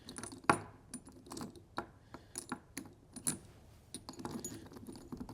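A run of light, irregular clicks and metallic clinks, roughly two or three a second, from gear being handled at the shooting bench.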